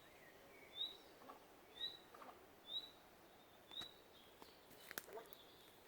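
Faint, short, high chirps repeated about once a second, five in a row, from an unseen animal that the listener takes for a bird he has never heard before; they stop about four seconds in, followed by a few faint clicks.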